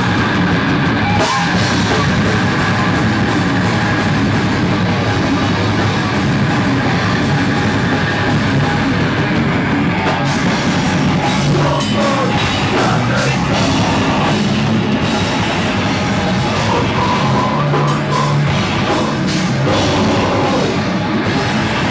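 A rock band playing live: electric guitar and drum kit in a loud, dense, unbroken wall of sound.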